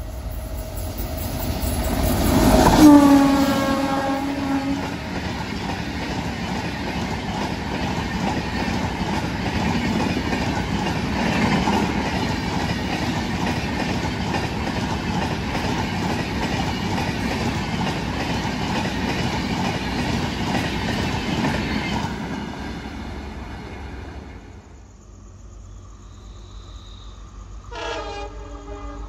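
An Indian Railways express train passing at speed: its horn sounds as it comes up, the note dropping in pitch as it goes by, then the coaches rush past with a steady roar and rapid wheel clatter over the rail joints that fades away. Another train horn starts near the end.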